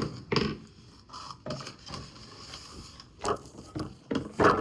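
Household objects being handled and set down: a string of irregular knocks and clatters, the loudest near the end.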